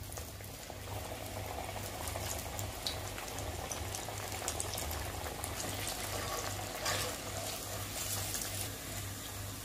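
Pressed taro root (arbi) pieces deep-frying in very hot oil in an aluminium kadai: a steady bubbling sizzle with scattered crackles.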